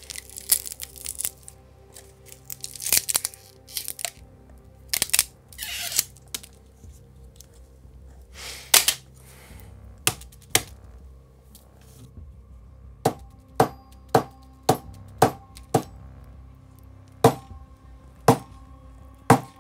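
An iPhone battery being pried and torn out of its frame with a pry tool: cracking and tearing noises, then a run of sharp knocks about two a second near the end, with faint music underneath.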